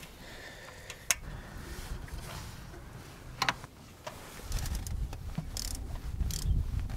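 Socket ratchet with an extension working a 10 mm ignition coil-pack bolt loose: a few isolated sharp metal clicks, then low rattling handling noise with scattered ticks from about halfway through.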